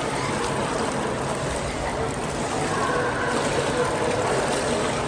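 Steady splashing and lapping of swimming-pool water as children swim through it.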